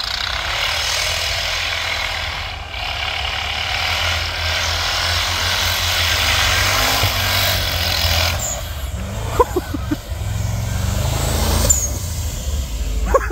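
Big off-road 4x4 truck driving in snow: a steady hissing rush over its low engine rumble for most of the time, then the engine revs up, rising in pitch, near the end.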